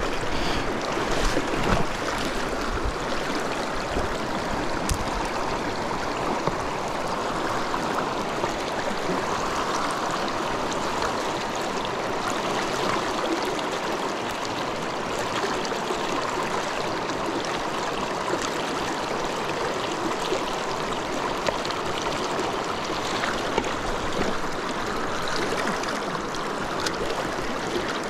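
Shallow, rocky mountain stream rushing steadily over stones close by. A few sharp knocks sound in the first two seconds.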